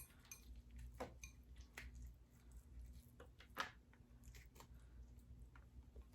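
Faint, scattered clicks and crackles of king crab leg shells being handled and broken open, with one sharper snap about three and a half seconds in.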